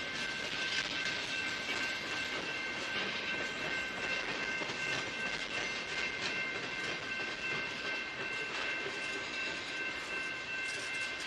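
Empty centerbeam flatcars and covered hopper cars of a freight train rolling past at trackside, a steady rush of wheel-on-rail noise. A steady high-pitched squeal, several tones at once, holds over it.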